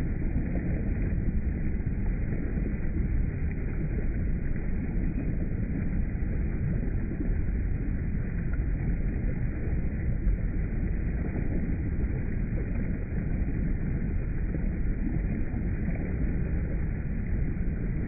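Water cascading and splashing over rocks in a small waterfall: a steady, deep rushing rumble.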